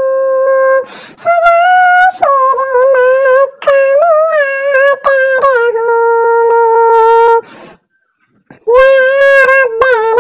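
A high-pitched voice singing a devotional nasheed unaccompanied, with long held and bending notes. The singing breaks off for about a second late on, then resumes.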